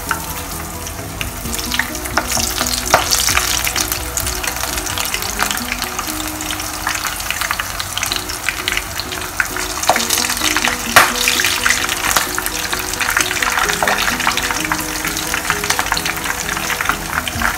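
Batter-coated prawns deep-frying in hot oil: a steady sizzle with crackling pops.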